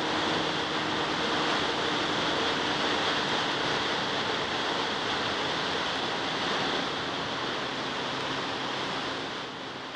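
Steady rush of wind over the microphone while riding a Honda CBR600 F4i sport bike at road speed, with the bike's inline-four engine a faint steady hum underneath. The sound fades down over the last few seconds.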